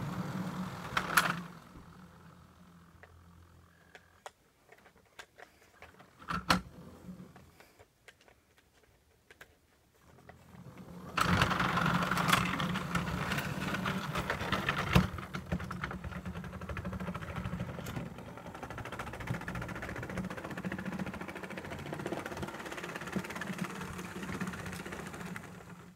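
Model train running on the layout's track: a small electric motor whirring with a light rattle of wheels on rail and a few sharp clicks. It is quiet for a while, then gets steadily louder from about eleven seconds in as the train comes close.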